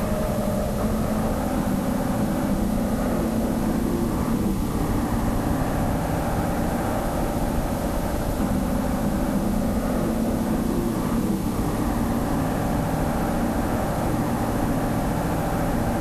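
Heavy diesel engines running steadily under load, the pitch rising and falling a little now and then: a tractor tipping a trailer of grass, then a wheel loader pushing and spreading the grass on a silage clamp.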